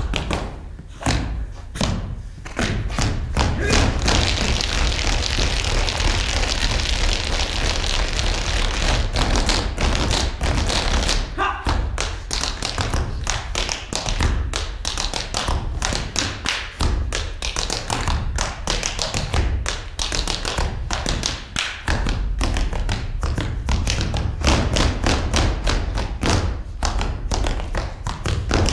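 Many dancers' feet stamping and tapping on a stage floor in a quick, busy rhythm. A steady rushing noise sits under the steps from about four to eleven seconds in.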